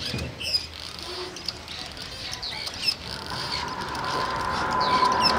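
Small birds chirping repeatedly in short, quick calls. From about halfway through, a steady hum and a haze of noise swell up, loudest near the end.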